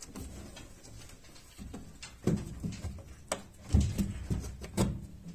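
White Belgian Giant rabbit moving about on the wooden floor of its hutch: irregular knocks and low thuds on the boards, a handful of sharper ones in the second half.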